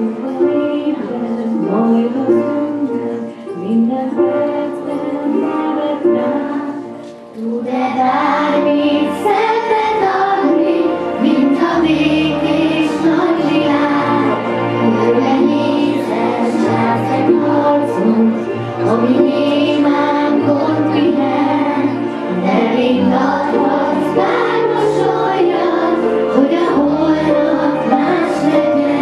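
Children's choir singing a song together; the sound grows fuller and louder about seven and a half seconds in.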